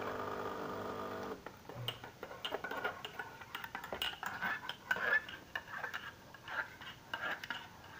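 A knife stirring and scraping in a small pan, with irregular light clinks and scrapes. A steady hum stops about a second in.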